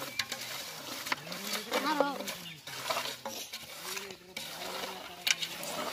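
Hands mixing raw fish pieces with spice paste in an aluminium bowl: irregular wet squelches and clicks of the fish against the metal. A short call, voice or animal, rises above it about two seconds in.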